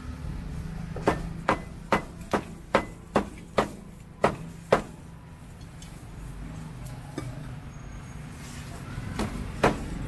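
Cleaver chopping grilled pig head on a thick round chopping block, with sharp knocks at about two a second: nine or so chops, a pause of several seconds, then two more near the end.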